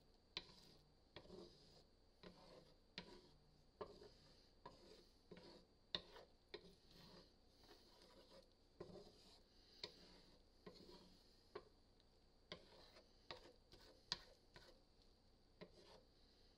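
Slotted spatula scraping and tapping against a cast iron skillet as scrambled eggs are pushed around, giving quiet, irregular clicks about one or two a second over a faint steady sizzle.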